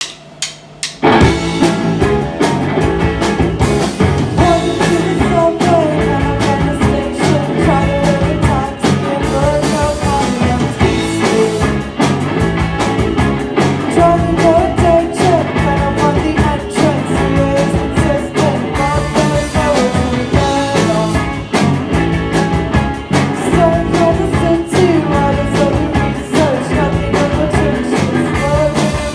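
Live band playing a rock song: electric guitars, keyboard and drums, with a woman singing. After a couple of short hits, the full band comes in about a second in.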